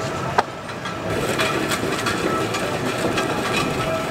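A heavy engine running steadily at idle, with scattered knocks and clanks. There is a sharp knock about half a second in.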